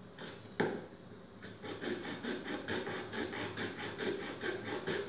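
A blade sawing back and forth through a large plastic pipe, a quick rasping of about five strokes a second that starts about a second and a half in, after a single sharp click.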